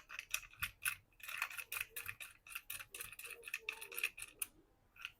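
A quick, irregular run of light clicks and ticks from small repair tools being handled on the bench, thickest in the middle of the stretch.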